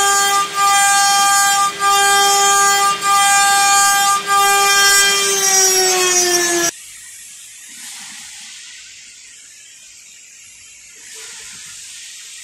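CNC engraving machine spindle whining at a steady high pitch as it cuts a metal workpiece, with brief dips about every second and a quarter. The pitch sags a little and the whine stops abruptly about seven seconds in, leaving a faint hiss.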